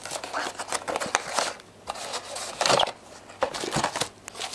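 Small cardboard box being handled and its inner tray slid out: irregular scraping and rustling of card with scattered light clicks.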